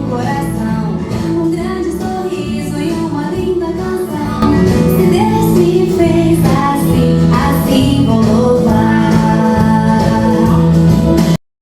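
A song with singing over instruments, getting louder about four seconds in and cutting off abruptly near the end.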